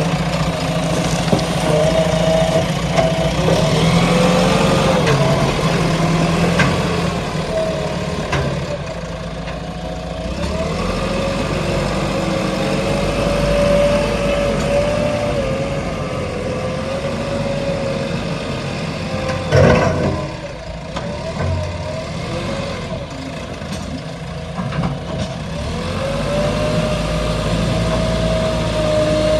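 JCB 3DX Xpert backhoe loader's diesel engine running, its pitch rising and falling as the machine works. A single loud knock comes about twenty seconds in.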